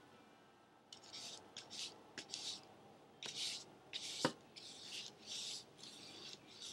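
Paintbrush scrubbing paint onto paper in short strokes, a quiet rasping swish about twice a second. There is one sharp tap a little over four seconds in.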